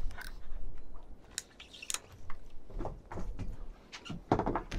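Scattered sharp clicks and knocks, with a low wind rumble on the microphone and a louder burst near the end.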